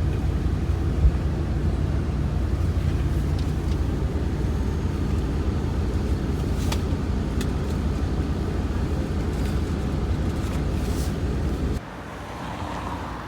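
Steady low road rumble of a moving vehicle, heard from inside, cutting off abruptly near the end.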